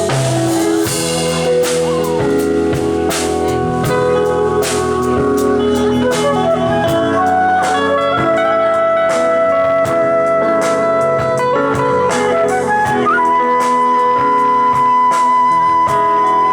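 Soul band playing an instrumental passage: a steady drum beat under long held lead notes.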